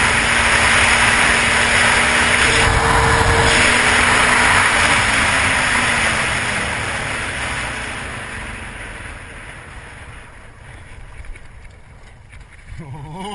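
ATV riding at road speed with heavy wind rushing over its front-mounted camera and the engine droning underneath. Over the second half the noise falls away steadily as the quad slows to turn off the road.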